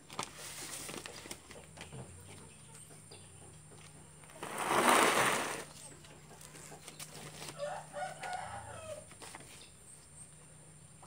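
Light clicks and rustling of plastic seedling trays being handled and stacked. About four seconds in, a loud animal call lasting about a second and a half stands out over them, with a fainter call near the end.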